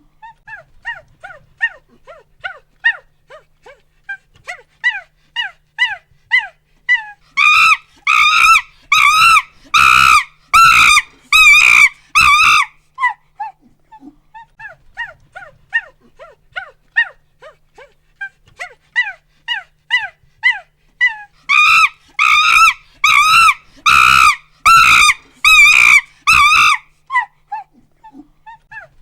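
Chimpanzee pant-hoot: a run of quick rising hoots builds into loud screams about seven seconds in, then falls back to breathy panting hoots. The whole sequence repeats, with the screams returning about twenty-two seconds in.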